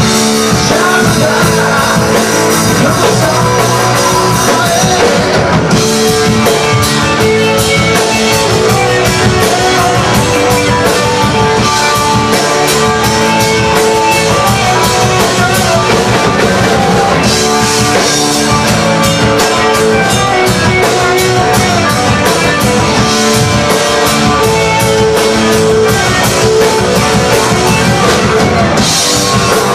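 A rock band playing a song: a drum kit keeping a steady, busy beat under electric guitar, bass and a singing voice.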